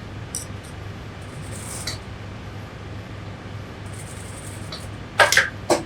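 Hand work at a tailor's bench: a few light rustles and clicks over a steady low hum, then two sharp clatters close together near the end, as of a tool being picked up or set down.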